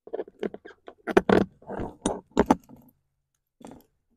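Small metal mounting hardware (bolts, washers and nuts) clinking and knocking while being fitted by hand to a saddlebag's mounting bracket. A quick run of clicks fills the first two and a half seconds, with one more knock near the end.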